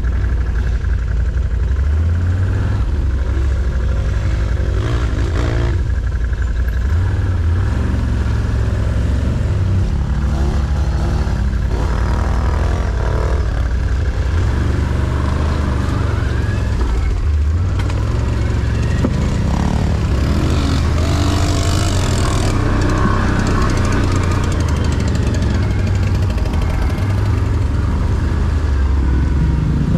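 Off-road vehicle engine running loud and continuous, its revs rising and falling as it is ridden.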